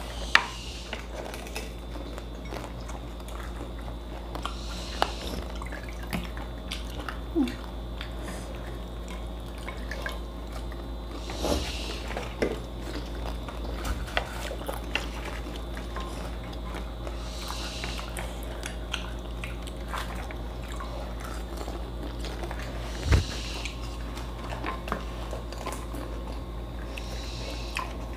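Wooden chopsticks clicking against plates and glass bowls of pani, with occasional slurps, liquid drips and crunches of pani puri being eaten. There is one louder knock about two-thirds of the way through, over a steady low hum.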